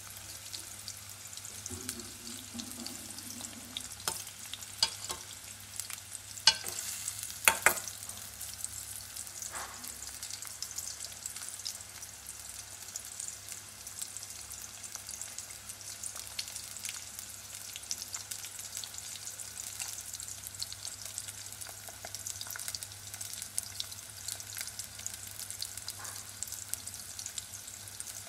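Potato chips frying in shallow oil in an aluminium pot, a steady sizzle. A few sharp knocks, the loudest sounds, come between about four and eight seconds in.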